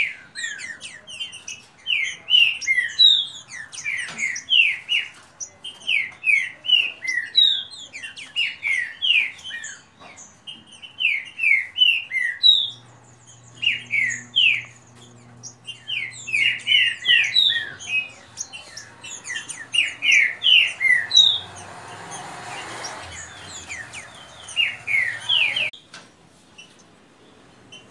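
Caged green-winged saltators (trinca-ferro) singing their fast song, phrase after phrase of quick whistled notes, the birds competing in song. The singing stops suddenly near the end.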